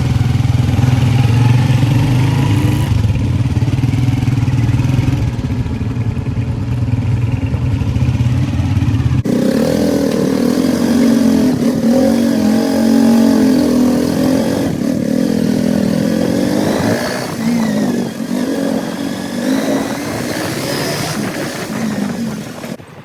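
Motorcycle engine running while riding. The note changes abruptly about nine seconds in, and after that it rises and falls with the throttle.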